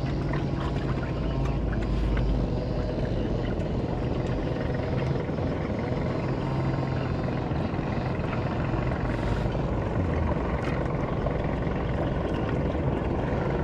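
Steady drone of a boat engine on the river, with a few faint clicks over it.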